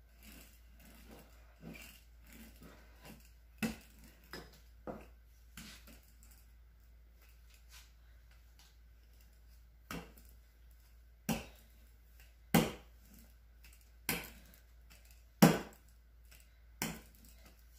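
Wooden rolling pin knocking against a wooden counter as pastry dough is rolled out. Scattered light knocks at first, then a run of louder knocks about every second and a half in the second half.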